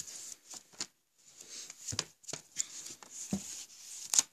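Glossy paper catalogues being handled and their pages turned: irregular rustling and crinkling of the paper with several sharp snaps, the loudest near the end.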